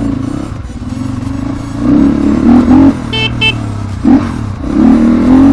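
Crossfire GR7 250 dirt bike's engine running at low speed, with the throttle opened in louder surges about two seconds and five seconds in and a short rev just after four seconds. A horn beeps twice briefly a little after three seconds.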